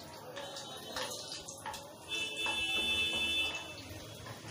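Whole spices crackling and sizzling in hot desi ghee in a kadhai, stirred with a spatula. A high-pitched tone sounds for about a second and a half midway, the loudest part.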